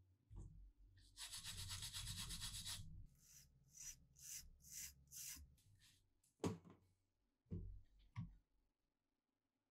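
Rubbing and scraping on a freshly welded steel part held in a bench vise. It is a continuous rub for about two seconds, then several short strokes about two a second. A sharp metallic click and two softer knocks follow.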